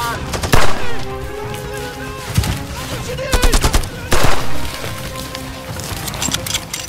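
Gunfire: single shots and short rapid bursts, loudest about half a second and four seconds in, over a music score of held tones.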